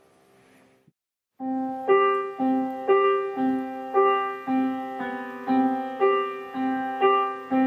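Piano music: after a faint earlier tune dies away and a brief silence, a piano passage begins about a second and a half in, striking a new note about twice a second in a steady, even rhythm.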